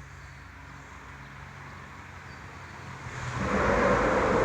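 A vehicle crossing the road bridge overhead: a faint low hum that swells sharply about three seconds in into a loud rush of tyre and engine noise.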